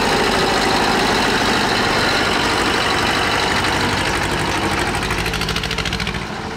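Vintage tractor engine running loud and steady with a fast, even beat, easing off slightly near the end.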